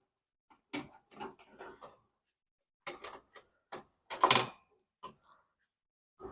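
Scattered clicks and light knocks of a screwdriver and hands working screws out of a kerosene heater's metal housing, the loudest knock about four seconds in.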